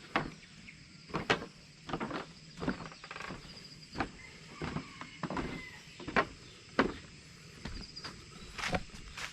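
Bicycle tyres rolling, with a short scuffing swish repeating about every two-thirds of a second.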